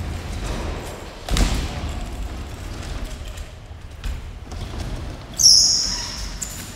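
BMX bikes on wooden skatepark ramps: a landing thud about a second in, tyres rolling on the ramp surface, then a short, sharp high squeal about five seconds in, the loudest sound.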